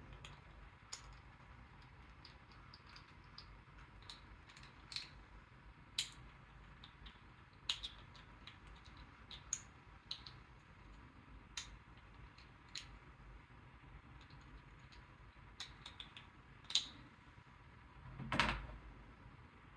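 Faint, irregular clicks and taps of small 3D-printed plastic parts being handled and worked, as a snap-fit head and slot are prodded and forced together, with one short, louder sound near the end.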